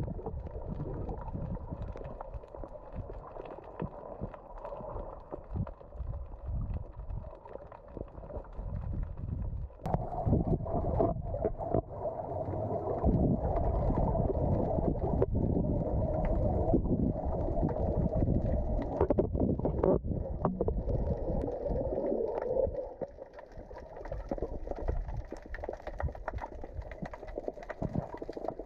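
Muffled underwater sound picked up by a camera in a waterproof housing: low rumbling water noise with many small clicks and knocks. A steady hum is heard from about ten seconds in until a little past twenty seconds, and the last few seconds are quieter.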